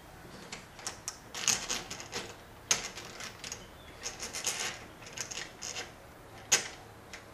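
Metal door lock hardware being handled: irregular small clicks and scrapes as the knob lock's parts and screws are fiddled into line, with two sharper clicks, one a little under three seconds in and one near the end.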